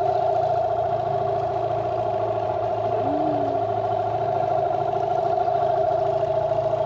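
Boat's outboard motor running at a steady speed, holding an even, unchanging tone.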